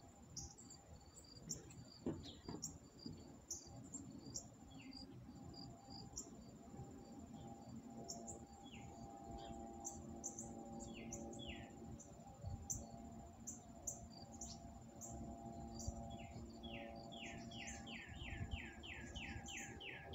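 Outdoor birdsong and insects: a steady high insect buzz with scattered short chirps, and a bird giving short falling notes that speed into a regular series of about three a second near the end. A faint low steady hum runs underneath.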